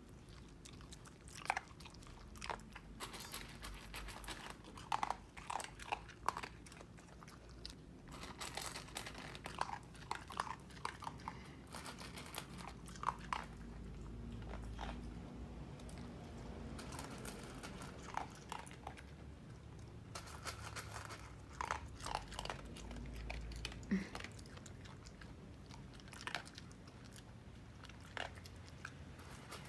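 A corgi eating from a stainless steel bowl: a long run of irregular chewing and crunching.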